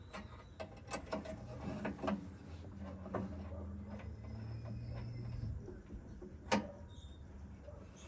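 Scattered metallic clicks and knocks of hand tools and hardware as a fastener is worked and tightened in a cramped spot, with a sharper knock near the end. A low steady hum runs under it for a few seconds in the middle.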